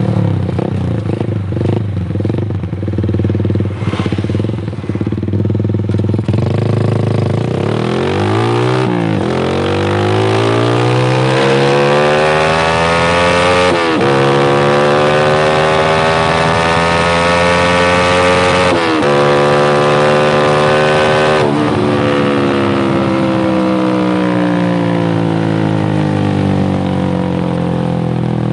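Honda CS1's single-cylinder four-stroke engine through an aftermarket Proliner header and Lone Rider silencer with full baffle: idling steadily, then pulling away and climbing in pitch through the gears, with a sudden drop at each of several shifts, then easing off with the pitch slowly falling.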